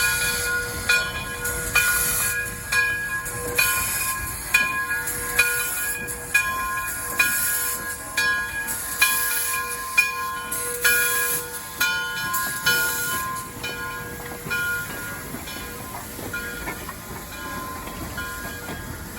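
A railway bell ringing about once a second, each strike ringing on, over the running noise of a train. The strikes grow fainter after about 13 seconds.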